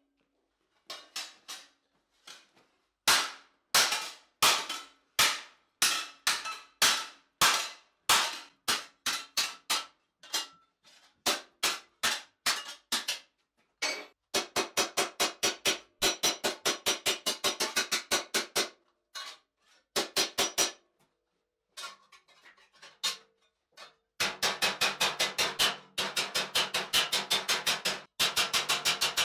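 Hand hammer striking a steel visor plate for a medieval helmet on an anvil, each blow a sharp metallic ring. Steady single blows at first, then fast runs of lighter blows, several a second, a little after the middle and again near the end, the last run with a low ringing hum from the plate.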